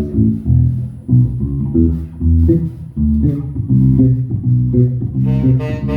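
Electric bass guitar playing a line of plucked notes on its own. Its tone is one that the bandleader wants softer.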